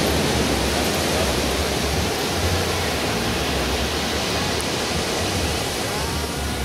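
Steady roar of ocean surf breaking on the beach: a continuous even hiss with a low rumble underneath.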